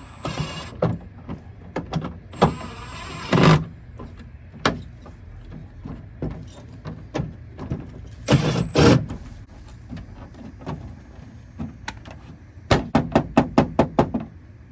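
Clicks, knocks and rustles of hands working on a car door and its door card: a couple of louder knocks about three and eight seconds in, then a quick run of about seven sharp clicks near the end.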